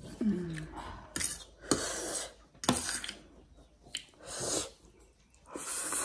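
Eating Korean ramen noodles close to the microphone: a short falling hum, metal cutlery clicking against a plate several times, then two hissing slurps of noodles, the second near the end.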